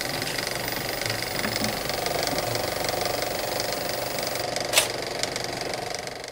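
Film projector sound effect: a steady rapid mechanical clatter, with one sharp click about three quarters of the way through.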